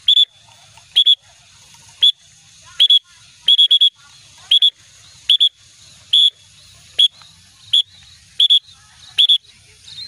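A whistle blown in short, high toots about once a second, some in quick pairs. It is the recall signal calling trained munias back to land on the hand.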